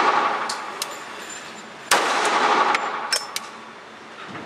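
A Sig Sauer P220 .45 ACP pistol fires once about two seconds in, the shot echoing through an indoor range. Several lighter, sharp clinks come before and after the shot.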